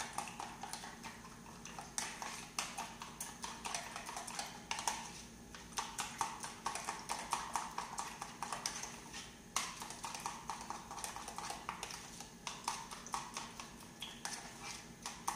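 Utensil beating a mixture in a plastic container: quick, rhythmic clicking strokes at about three or four a second, with a few short pauses.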